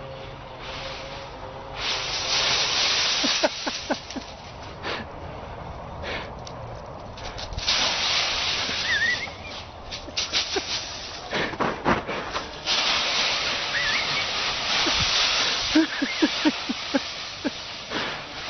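Dry autumn leaves rustling and crunching in bursts of a few seconds as a Siberian husky plunges and rolls through a leaf pile, with scattered crackles and a few short high chirps.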